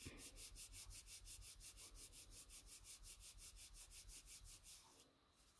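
Hands rubbing quickly back and forth over cardstock, pressing a freshly glued fold flat so the glue takes: faint, even strokes about five a second that stop near the end.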